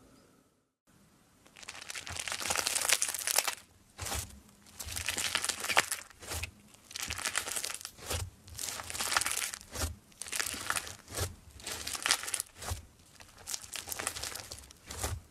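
Fluffy white slime crackling and crinkling as hands squeeze and fold it, in repeated bursts about a second apart.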